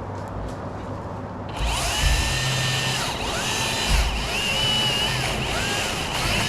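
Electric chainsaw motor revving in a series of trigger pulls, starting about a second and a half in. Its whine rises, holds and falls about four times.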